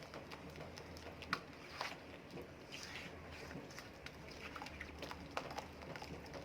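A soft mixture of butter, eggs and sugar being mixed in a bowl: faint, scattered soft clicks and squelches, over a low steady hum.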